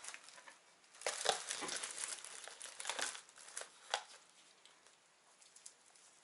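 Thin plastic produce bag crinkling as bunches of fresh dill and green onion are pulled out of it: a run of crackly rustles for about three seconds, then only faint handling noises.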